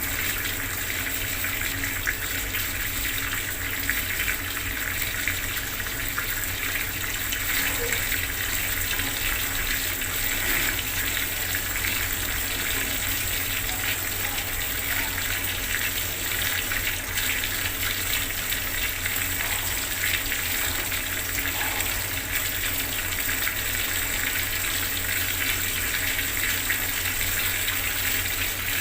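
Bathroom water tap running steadily, the water splashing in a continuous, even stream.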